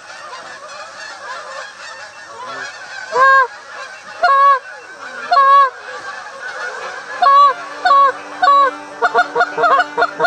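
Geese honking over a steady background of flock chatter: three loud honks, then three more, then a quickening run of short clucks near the end.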